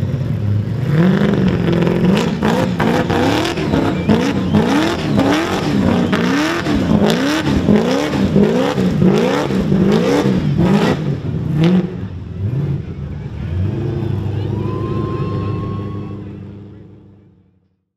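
Supercharged Holden Commodore burnout car's engine revved hard up and down over and over during a burnout, rising and falling about every two-thirds of a second, with sharp bangs. About twelve seconds in it drops to lower, steadier revs, then fades out near the end.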